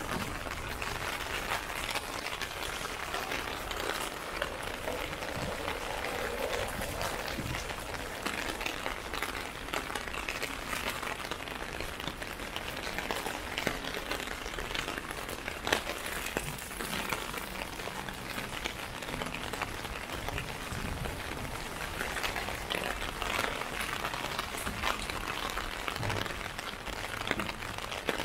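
Steady rain pattering on a clear plastic umbrella overhead: a dense mass of small drop hits over the hiss of falling rain, with a few heavier drips standing out.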